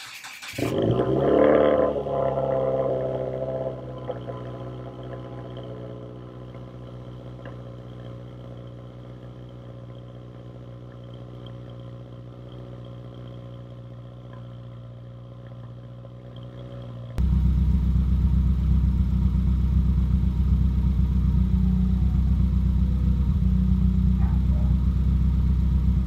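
2015 Subaru WRX turbocharged flat-four with a Nameless axleback exhaust starting up cold: the revs flare about a second and a half in, then settle over a few seconds into a steady idle. About 17 seconds in the idle suddenly becomes much louder and deeper, heard right at the exhaust tips.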